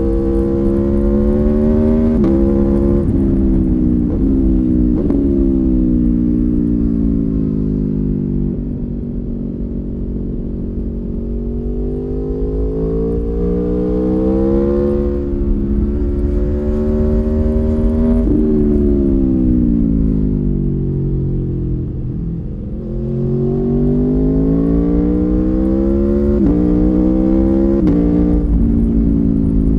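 Stock 2019 Aprilia Tuono V4 1100 Factory's V4 engine under hard riding. It revs up and the pitch drops abruptly at each upshift, three times in the first five seconds. The revs then fall away slowly on the overrun and climb again, with two more quick upshifts near the end.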